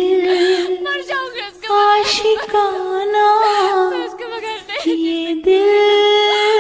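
A song with a high voice singing long held notes that waver in pitch, with brief breaks between phrases.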